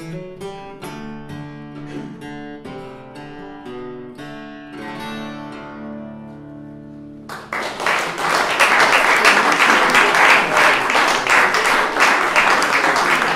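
Acoustic guitar picking the last bars of a folk tune, with the final notes left ringing. About seven seconds in the audience breaks into applause, louder than the guitar.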